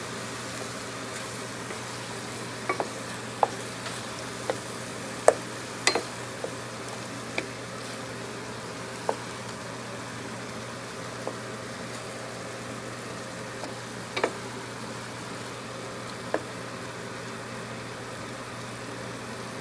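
Sausage, meat and peppers frying in a stainless steel pot with a steady sizzle, stirred with a wooden spatula. Sharp clicks and knocks come at irregular moments.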